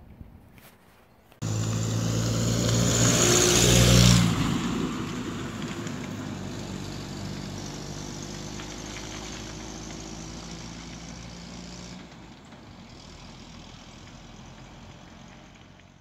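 A Series IIA Land Rover driving past and away, its engine and tyre noise cutting in suddenly about a second and a half in. It is loudest as it passes a couple of seconds later, then fades steadily as it drives off.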